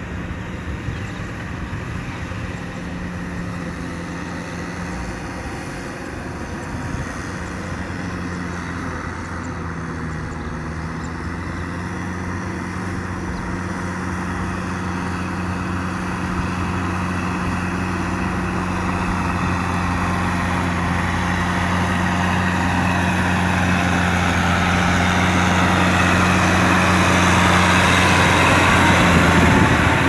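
Kubota M6040 tractor's four-cylinder diesel engine running steadily under load as it works a flooded, muddy paddy field. A rushing noise swells over the second half and is loudest near the end.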